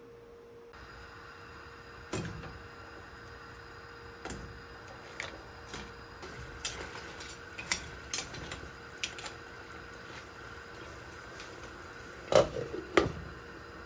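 Clams and other shellfish dropped one at a time into a pot of simmering sauce, a string of separate clicks and knocks, over a steady gas-burner hiss. Near the end a metal pot lid knocks against the pot twice, the loudest sounds here.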